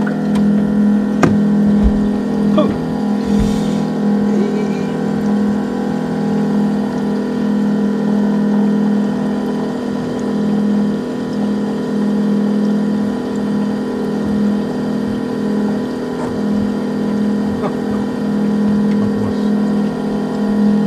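Steady hum of a small engine running at an even speed, with a few sharp knocks in the first few seconds.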